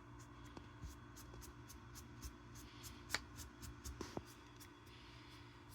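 Soft camel hair brush stroking the feathers of a mounted Barrow's goldeneye, a faint rubbing over a steady low hum, with a few light clicks about three to four seconds in.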